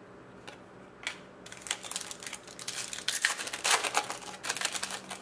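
A foil trading card pack being opened and its hockey cards slid out and flipped through: a couple of light ticks, then a rapid crisp rustle of crinkling wrapper and cards clicking against each other, building to its loudest about three to four seconds in.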